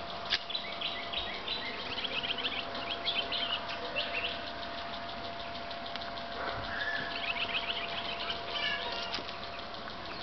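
Birds chirping and singing in quick repeated notes, with a faint steady hum underneath.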